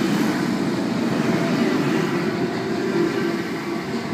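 Sydney Trains C-set double-deck electric train pulling out of the platform, its cars rolling past with a steady rumble that eases off a little near the end as the last car goes by.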